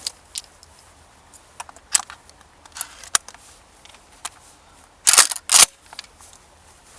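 A firearm being handled, with scattered light clicks, then two sharp, loud clacks about half a second apart around five seconds in.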